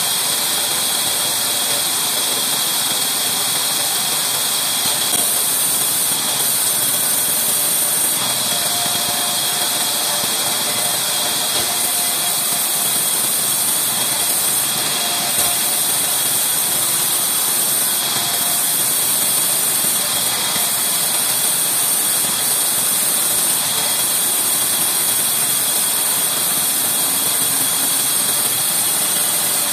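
Large vertical band saw running steadily and ripping along an old reclaimed wooden beam, an even, unbroken noise with a strong hiss high up.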